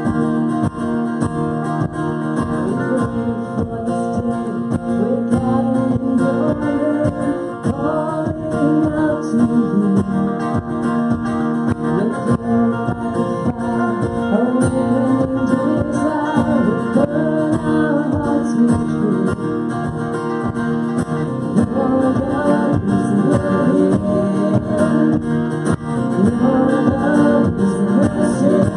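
Live worship band playing a song: strummed acoustic guitar with electric guitar and drums, and a woman and a man singing into microphones.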